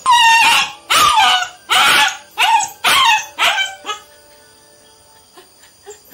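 Three-month-old German shepherd puppy barking, about six barks in quick succession over roughly four seconds.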